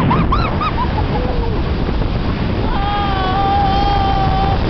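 A woman screaming on a paraglider in a spiral, over heavy wind rushing on the microphone: a few short yelps at the start, then one long held scream from a little past halfway to just before the end.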